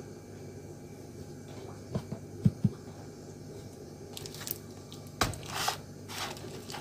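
A few short low knocks about two seconds in, then a plastic-wrapped, taped parcel set down on a cutting mat with a knock about five seconds in, its plastic wrapping crinkling as it is handled.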